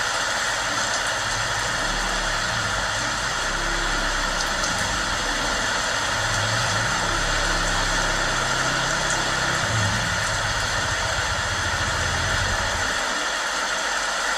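Heavy rain falling steadily, with a low rumble underneath that builds about two seconds in and cuts off shortly before the end.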